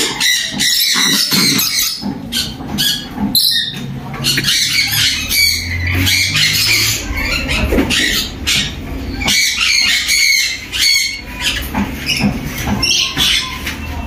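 Parrots squawking: a dense run of short, harsh, rasping calls repeated one after another.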